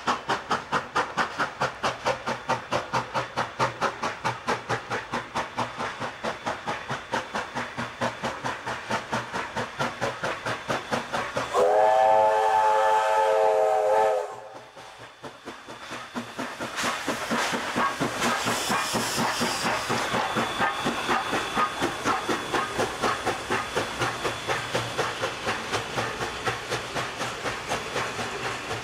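Steam locomotive working hard past at close range, its exhaust chuffing in a quick, steady rhythm with hissing steam. About halfway through comes one long chime-whistle blast of about three seconds, after which the chuffing picks up again.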